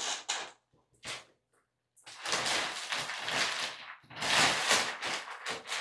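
Blue IKEA woven-plastic shopping bag rustling and crinkling as hands rummage through it, in several irregular bursts.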